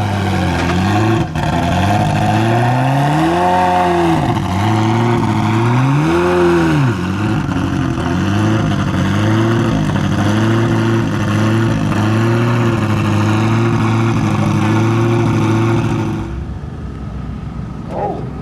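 Ferrari F40 LM's twin-turbo V8 idling, blipped twice a few seconds in so the revs rise and fall, then running steadily; it gets quieter near the end.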